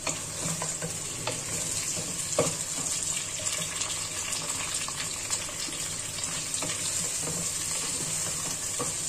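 Sliced onions sizzling in hot oil in a pressure cooker, stirred with a wooden spoon that knocks lightly against the pot now and then.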